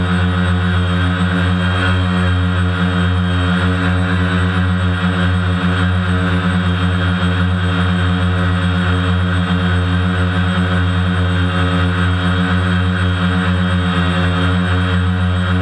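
Original DJI Phantom 1 quadcopter's four electric motors and propellers whirring at hover, a loud, steady hum with an even pitch, heard up close from the drone itself.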